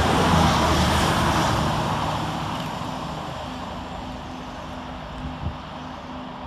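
Two coupled Class 220 Voyager diesel-electric trains passing through at speed: the rush of the train and its underfloor diesel engines fades steadily as the tail end recedes, leaving a low steady hum.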